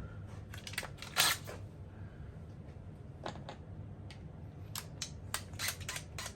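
Sharp clicks and light knocks of small hardware and tools being handled on a work surface, scattered irregularly, with a louder one about a second in and a quicker run of clicks near the end.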